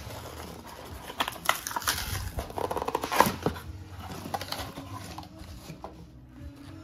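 Small cardboard box being handled and pulled open: flaps scraping and rustling, with a quick run of clicks and crinkles that is loudest about three seconds in.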